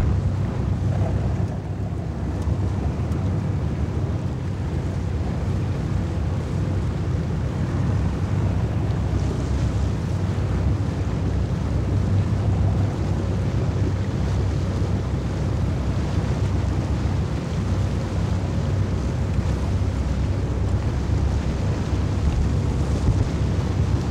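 Motorboat engines running steadily under way, a constant low rumble, with wind buffeting the microphone and water rushing past the hull.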